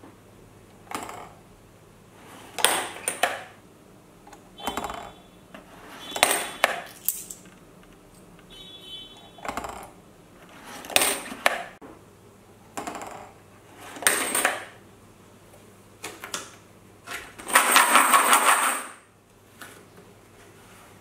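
Coins dropping one at a time into a cardboard coin bank, a metallic clink every second or two, some with a short ring. Near the end comes a longer rattle of coins lasting about a second and a half.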